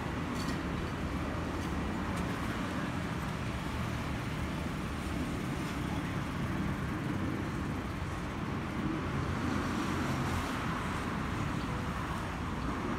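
Steady, broad jet roar of a Boeing 737-800's CFM56-7B engines as the airliner flies over at altitude, swelling slightly about nine seconds in.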